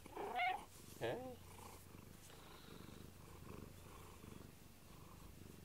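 Domestic cat purring steadily at close range, a soft even rumble. Two short pitched vocal sounds come in the first second and a half.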